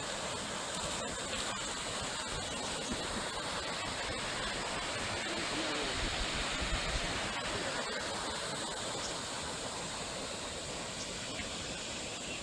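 Waterfall rushing, a steady, even roar of falling water. A brief low rumble rises a little above it about halfway through.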